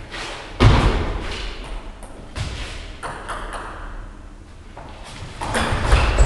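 Table tennis ball being played: a heavy thud about half a second in, a few scattered taps, then a quick run of sharp pings of ball on paddle and table as a rally starts near the end.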